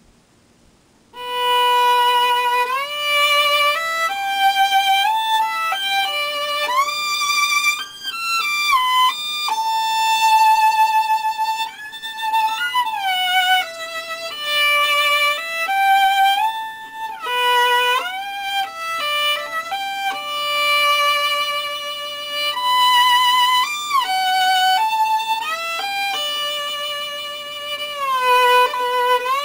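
Solo violin playing a slow Chinese melody, starting about a second in, with vibrato on the held notes and slides between notes.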